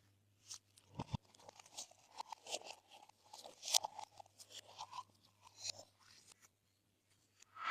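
Glossy slime being mixed and squeezed by hand, making a run of small sticky pops and clicks, then a gap of about a second near the end before a louder pop.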